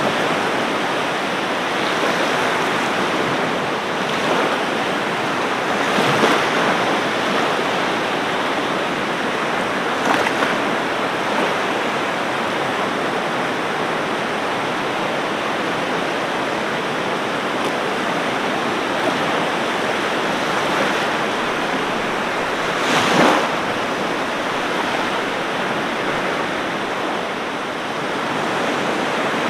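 Ocean surf washing steadily on a beach, with a few short louder breaks; the loudest comes about three quarters of the way through.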